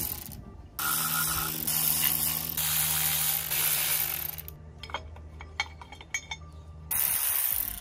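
Cordless ratchet spinning the water pump bolts out of a diesel engine: one long steady run of about three and a half seconds, a few clicks and taps, then a shorter run near the end.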